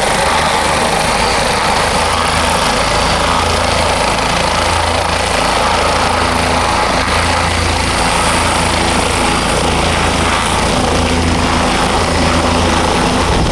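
Sheriff's helicopter running close by: loud, steady rotor and turbine engine noise with a low, uneven throb.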